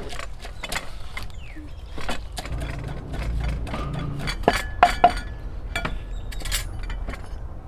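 Kitchen utensils and dishes clinking and knocking: a scatter of light clinks, with three sharper clinks close together about four and a half to five seconds in.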